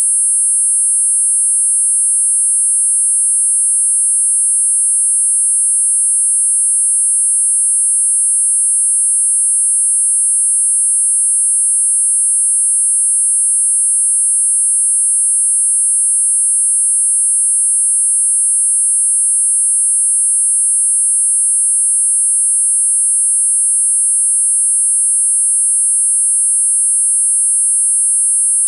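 Four synthesized sine tones at 8.5, 9, 10 and 10.5 kHz sounding together as one steady, unchanging high-pitched whine: a multi-tone tinnitus masker.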